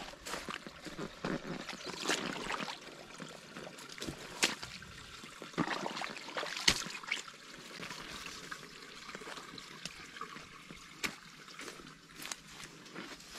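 Water trickling, with irregular footsteps on the trail.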